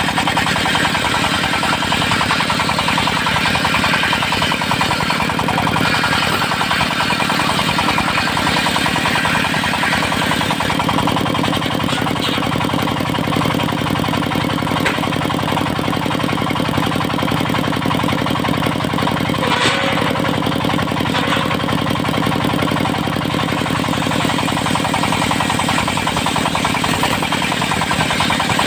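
Diesel engine of a mobile circular sawmill running steadily with a fast, even knock, together with the hiss of the spinning saw blade.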